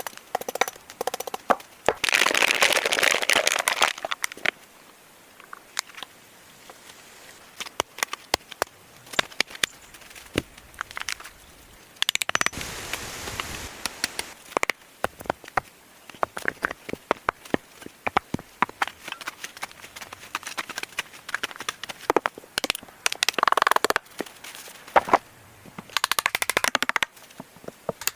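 Irregular sharp cracks and snaps of wood and twigs, with several bursts of rustling lasting a second or two.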